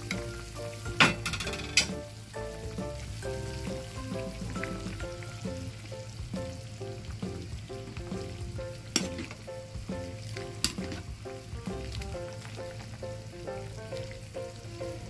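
A pot of vegetable soup cooking and being stirred, with a steady bubbling hiss and a few sharp clinks of a utensil against the pot, under light background music.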